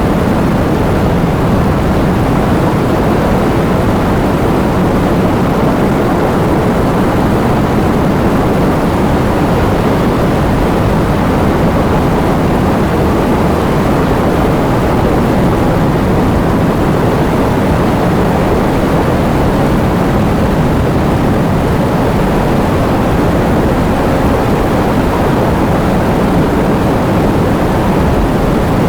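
Heavy rain pouring down with wind, a loud, steady, low rushing wash that does not change.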